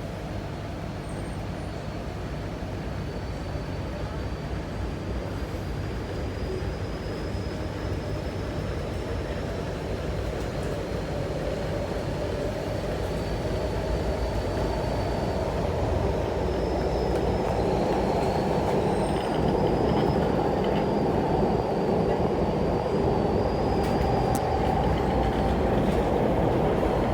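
Cabin noise of a CRRC Changchun electric multiple unit on the MTR Tuen Ma Line as it gathers speed: a rail rumble that grows steadily louder, with a faint high whine rising slowly in pitch.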